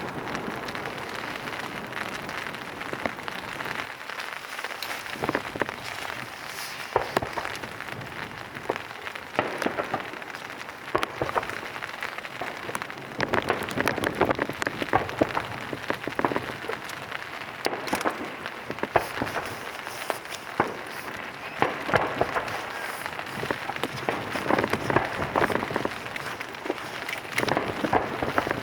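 Rain falling: a steady hiss with many sharp single drop hits close to the microphone.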